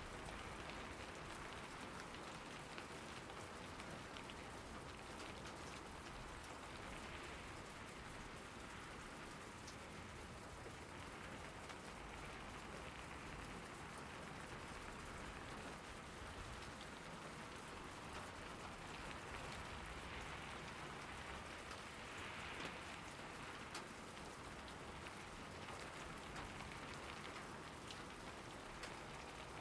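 Steady rainfall, an even hiss with scattered drop ticks from drops hitting surfaces.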